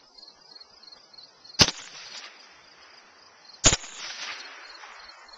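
Two shots from an AR-15-style rifle, about two seconds apart, each followed by an echo rolling back across the open field.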